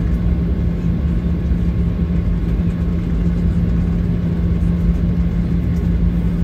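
Jet airliner engines and cabin noise heard from inside the passenger cabin while the plane taxis: a steady low rumble with a constant hum, no spool-up.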